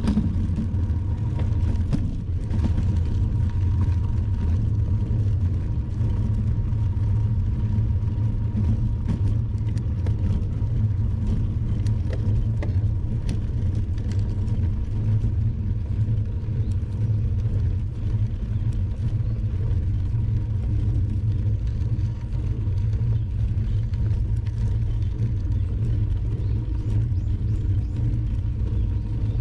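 Steady low rumble of wind and road noise from a bicycle being ridden along a road.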